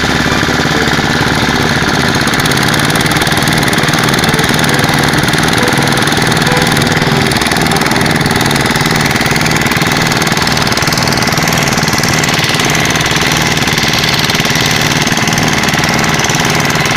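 Diesel engine running steadily at idle with an even, rapid low beat.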